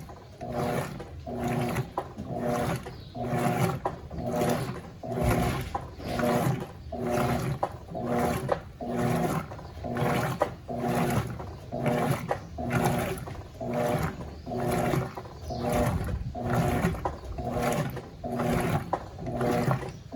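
Electrolux LF90 9 kg top-loading washing machine agitating a load of towels in normal agitation mode: the motor hums and the agitator swishes back and forth about once a second, a steady rhythm with the water sloshing.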